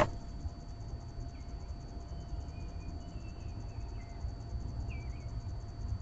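Backyard outdoor ambience: a steady low rumble with a few faint, short bird chirps and whistles scattered throughout. There is a sharp click right at the start.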